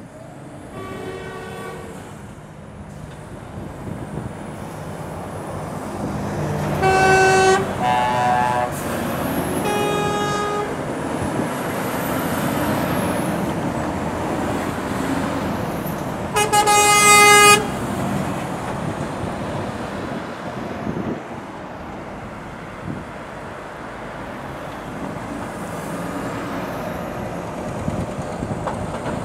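Truck horns sounding five short toots, about a second in, twice around seven to eight seconds, near ten seconds and loudest near seventeen seconds, one of them at a different pitch. Under them, the engine and tyre noise of heavy lorries passing swells and then fades.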